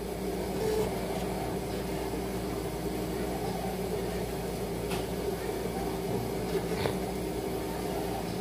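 Steady mechanical hum of running machinery, with two faint clicks in the second half.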